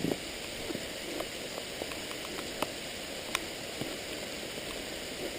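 Steady rain falling, an even hiss with scattered small ticks of drops striking close by.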